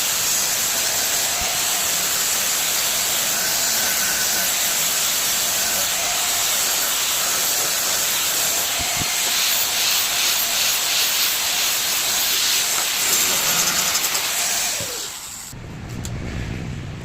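Electric arc welding: the arc gives a steady, loud hiss that stops abruptly about fifteen seconds in, followed by a quieter low rumble.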